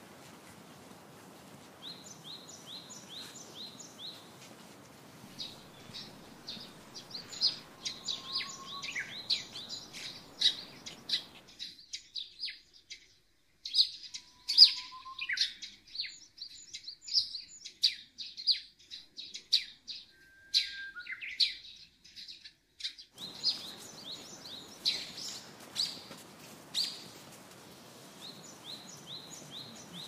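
Songbirds chirping: quick repeated series of short, high notes, thickest and loudest through the middle. A faint background hiss drops out for a stretch in the middle.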